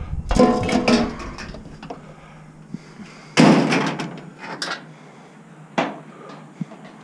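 Scrap aluminum and steel framing pieces clanging onto a pile of metal in a pickup truck bed. A few ringing metallic clatters come in the first second, a loud crash about three and a half seconds in dies away over about a second, and a shorter clank comes near six seconds.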